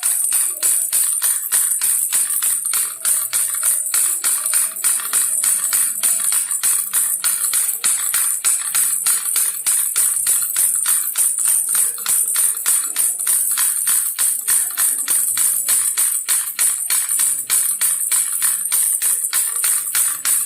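Baby rattle shaken rapidly and continuously, a bright jingling rattle in an even rhythm of several shakes a second.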